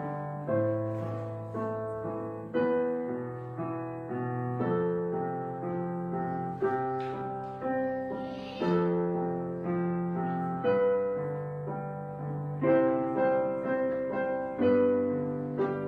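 Soft background piano music: notes and chords struck about once a second and left to fade.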